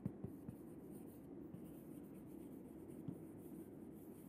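Chalk writing on a chalkboard: faint scratching with a few light, sharp taps as the chalk strikes the board.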